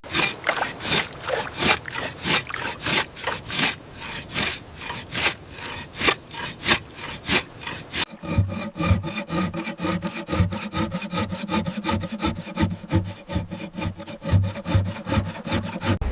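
A blade sawing back and forth through the nylon fishing net in rhythmic rasping strokes, about three a second. From about halfway the strokes come a little faster and take on a pitched, squeaking tone.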